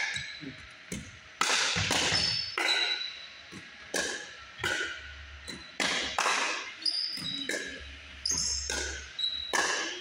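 Pickleball rally: a quick run of a dozen or so sharp pops as paddles strike the hollow plastic ball and it bounces on the hardwood floor, each pop ringing briefly in the gym. Short high squeaks of sneakers on the wooden floor come in between.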